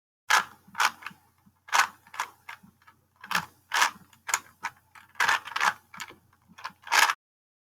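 Rubik's Cube being twisted: a quick, irregular run of sharp plastic clacks and clicks as the layers are turned, stopping abruptly near the end.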